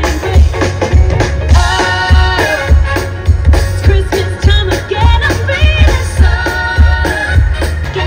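A live band playing upbeat pop-rock: drums and bass on a steady beat, electric guitar, and a singer.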